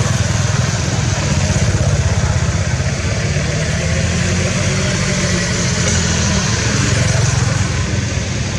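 An engine running steadily at idle: a low, even rumble with hiss above it.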